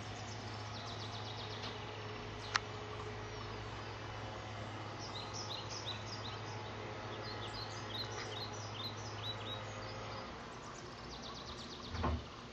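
Songbirds chirping in quick series of short, high, falling notes, over a steady low hum that stops about ten seconds in. A sharp click about two and a half seconds in and a low thump near the end.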